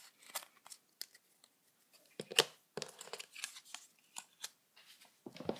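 Trading cards and an opened foil booster-pack wrapper being handled on a wooden table: scattered crinkles and light taps as cards are shuffled and laid down, the sharpest about two and a half seconds in.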